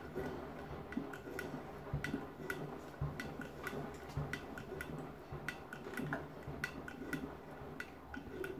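Front-loading washing machine tumbling a wet load that holds children's sandals: irregular sharp clicks and knocks, a few a second, as the sandals hit the drum and door glass, over a steady low motor hum and water sloshing.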